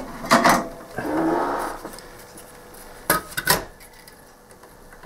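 Handling noises: fabric brushing close by, with knocks in the first second or so, then two sharp clicks about half a second apart.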